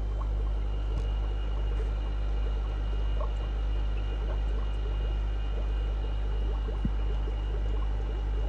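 Aquarium equipment running: a steady low hum with faint water trickling and bubbling, and a few faint ticks.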